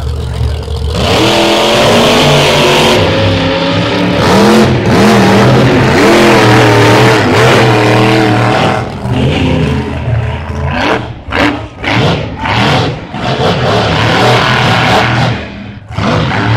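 Monster truck engines at full throttle on a drag run, starting about a second in with the pitch rising and shifting as they accelerate. Later the sound comes in uneven, choppy surges.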